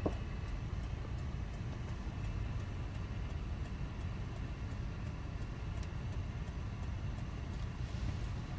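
Steady low rumble, with faint high ticks repeating about two to three times a second.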